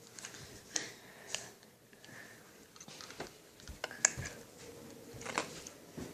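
Faint handling noise: scattered soft clicks and rustles, with a few sharper clicks about four and five seconds in.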